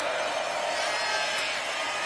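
Steady noise of a large stadium crowd during a football play.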